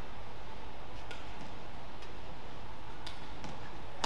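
Steady hum of a badminton arena between points, with a few faint ticks about a second in and again near three seconds.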